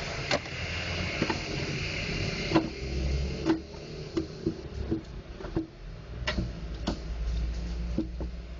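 Irregular plastic clicks and knocks from an HP laser printer drum unit's housing being handled and refitted by hand, about a dozen of them, the loudest about two and a half seconds in, over steady low background noise.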